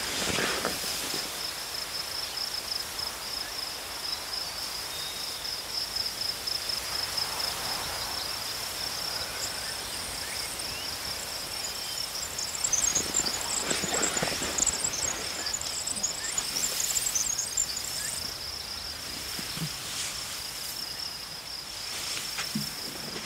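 Insects trilling in a steady, pulsing, high-pitched chorus. Several seconds of faster, higher chirping join in midway, with occasional soft rustles.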